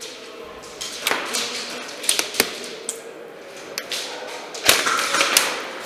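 Airsoft guns firing single shots: sharp snapping cracks at irregular intervals, a cluster about two seconds in and the loudest shot near the end.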